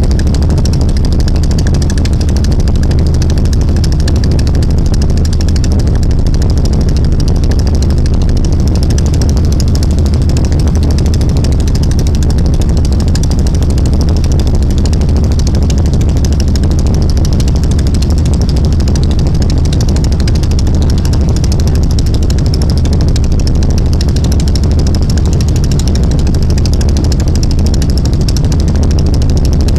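Small fishing boat's engine running at a constant speed: a loud, steady low drone with a steady hiss above it.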